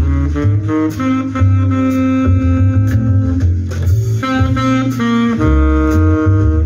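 Instrumental music with a sustained lead melody over bass and a steady beat, about one beat a second. It is played over loudspeakers by a Marantz PM8000 integrated amplifier running in Class A mode with its tone controls bypassed.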